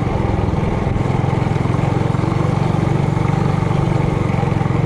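Four-stroke engine of a Trailmaster Hurricane 200X mini bike running steadily while riding, with an even, rapid throb that holds its pitch.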